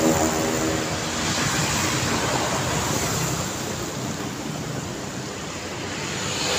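Night street traffic: a steady hiss of tyres and engines from passing cars and motor scooters. The hum of a vehicle that has just gone by fades in the first moment, and the noise swells again near the end as another vehicle approaches.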